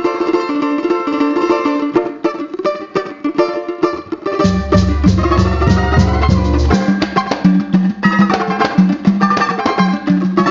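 Instrumental samba music: plucked strings and percussion, with no singing. A deep bass line comes in about four and a half seconds in.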